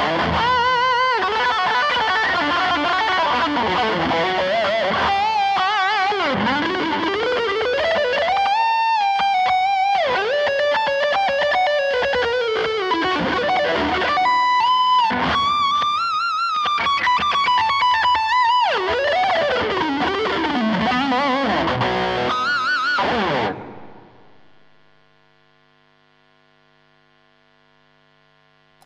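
Electric guitar through a Blackstar HT5R tube combo amp with heavy distortion, playing a lead solo of sustained, bent notes with wide vibrato. The playing cuts off abruptly near the end, leaving a faint amp hum.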